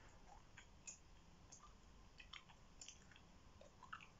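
Faint gum chewing: soft, irregular wet mouth clicks, a few each second, with a couple of slightly louder ones near the end.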